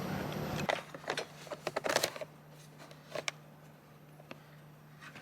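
Light clicks and knocks of a plastic heat pump line-set cover being handled and fitted, bunched together a second or two in, with one more knock a little later.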